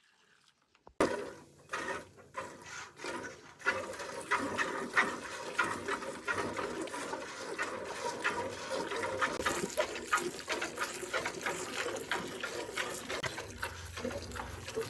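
Cow being milked by hand: milk squirting into a pail in a steady rhythm of about two squirts a second, starting about a second in.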